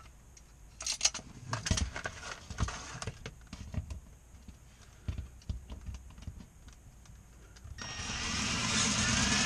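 Scattered light clicks and knocks of a cordless drill and screw being handled against the box, then about eight seconds in a Kobalt cordless drill starts and runs steadily, driving a mounting screw.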